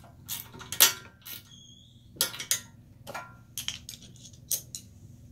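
Box wrench and Allen key clinking and clicking on the steel torque-arm bolt of an electric trike's rear axle as it is tightened: a string of irregular sharp metal clicks, the loudest about a second in, with a short high ring in the middle.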